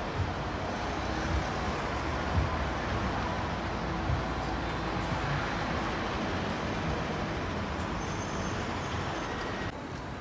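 Road traffic noise: cars and delivery vans passing close by, a steady wash of engine and tyre noise with a few small knocks, turning a little quieter abruptly near the end.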